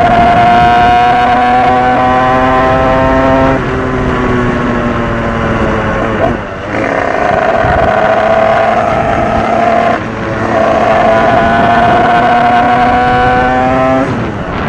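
DRD dirt bike's small single-cylinder engine running hard under way, its revs held high with the pitch slowly climbing. The revs drop briefly four times, about 3.5, 6.5, 10 and 14 seconds in, then pick up again.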